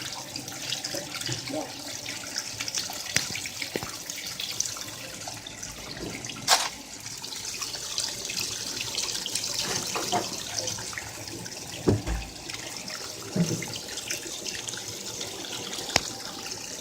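Washing machine running with water pouring and sloshing inside the drum, a steady rush of water broken by a few sharp knocks.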